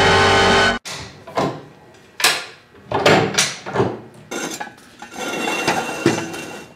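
High-lift (Hi-Lift) farm jack being worked by hand: an irregular series of sharp metal clanks and rattles from the climbing pins and handle on the steel bar as the handle is pumped to raise the vehicle.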